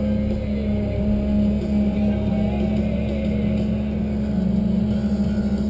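Tigercat 1075B forwarder's diesel engine running steadily under load, heard from inside the cab while the hydraulic crane works, as an even drone with a strong low hum.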